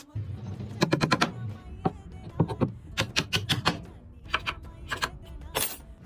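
Sharp knocks and taps, in quick runs of several strikes with short gaps between.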